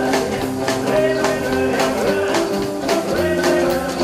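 Rockabilly band playing live: upright double bass, acoustic guitar and hollow-body electric guitar over a steady beat of about four strokes a second.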